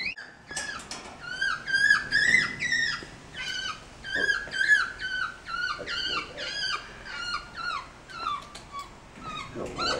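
Black-capped capuchin monkey giving a long run of short, high-pitched squeaky calls, about two a second.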